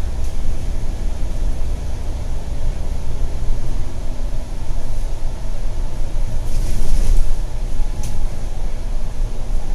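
Inside a bus travelling through a road tunnel: steady low engine and road rumble, with a short hiss about seven seconds in and a faint click just after.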